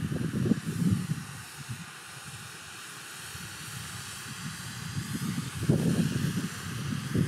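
Burning fireworks giving a steady hiss, with low wind rumble on the microphone that eases off in the middle and picks up again near the end.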